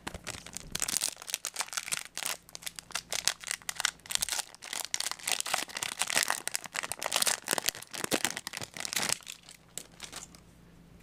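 Foil wrapper of a Yu-Gi-Oh! booster pack crinkling and crackling as it is handled and torn open, stopping about nine seconds in.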